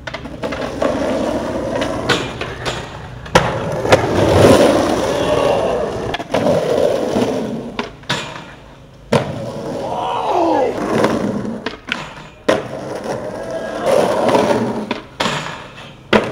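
Skateboard wheels rolling on concrete, broken by several sharp clacks of boards popping and landing.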